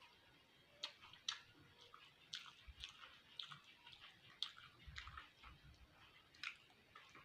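A person chewing beef fat: faint, irregular wet clicks and smacks of the mouth, a couple every second.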